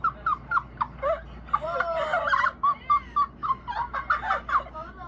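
A person's high-pitched, wheezing laughter: a rapid string of short squeaky hoots, about four or five a second, thickening into a fuller laugh around the middle.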